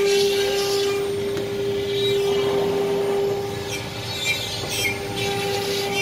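CNC router in a workshop running with a steady whine from its spindle, over a noisy mechanical background.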